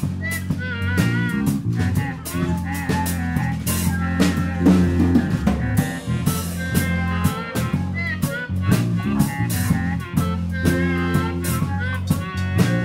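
Background music with a steady drum beat over a bass line, in a bluesy style.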